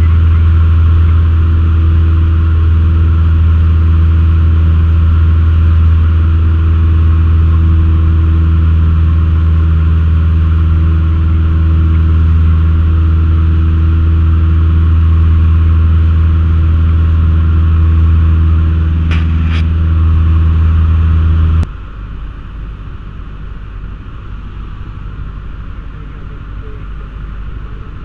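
Cessna 152's four-cylinder Lycoming engine and propeller droning steadily in the cockpit, a deep even hum. Two short high ticks come shortly before the drone cuts off suddenly, about three-quarters of the way through, leaving a quieter rushing engine-and-wind noise.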